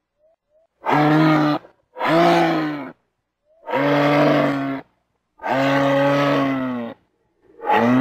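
Moose grunting: a series of five low, drawn-out calls, each about a second long with short gaps between them. The fifth call begins near the end.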